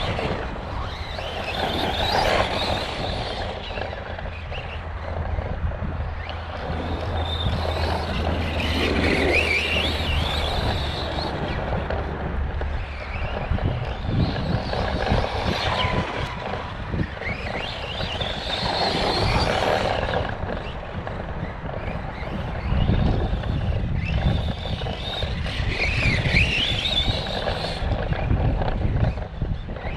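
Arrma Kraton 4S brushless electric RC monster truck lapping a track, its motor and drivetrain whining higher as it accelerates, swelling each time it comes past. The uploader suspects an unhappy bearing or gear in the drivetrain.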